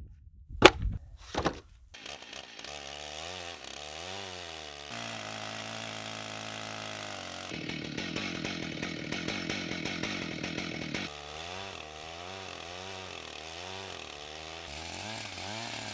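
Two sharp wooden knocks as an oak slab is set down on a sawhorse. Then a Stihl chainsaw with a 48-inch milling bar runs, its engine pitch rising and falling, with a rougher stretch in the middle.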